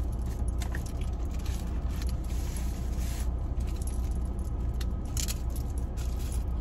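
Small objects being handled: clicking, light metallic jangling and rustling. Under it runs the steady low hum of the idling car.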